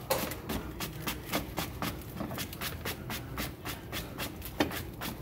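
Hands working over a beaver felt western hat, making a run of quick scratchy strokes on the felt, about four a second and unevenly spaced, with one louder stroke near the end.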